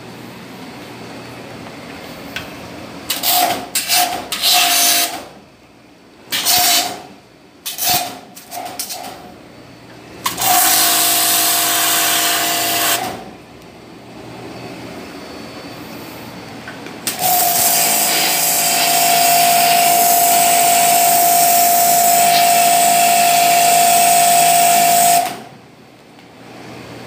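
Pressure washer spraying stainless steel kitchen fixtures: a hissing spray with a steady motor whine, in a few short bursts, then two longer runs, the last about eight seconds long.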